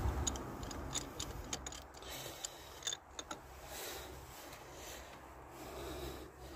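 Socket ratchet clicking in short runs of ticks as the last spark plug is unscrewed, tapering to a few scattered clicks around three seconds in.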